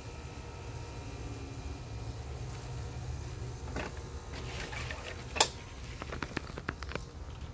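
Steady low rumble with light clicks and rustles starting about four seconds in, and one sharp knock about five and a half seconds in: handling noise and footsteps of someone walking with a handheld phone camera.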